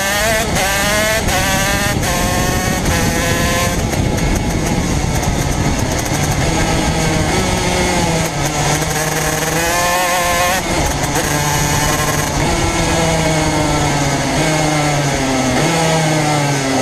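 Racing kart engine heard up close from an onboard camera, revving up and down as the kart accelerates out of corners and lifts off, its pitch climbing several times in the first few seconds and rising and falling again later.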